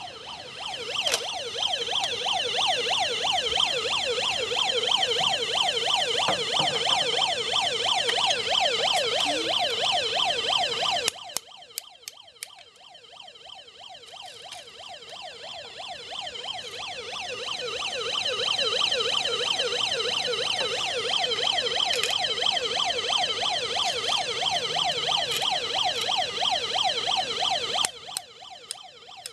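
Electronic siren of a 1998 Exxon toy fire rescue truck, a fast warbling wail that sweeps up and down several times a second. It turns much quieter about a third of the way through, swells back up, then drops off near the end.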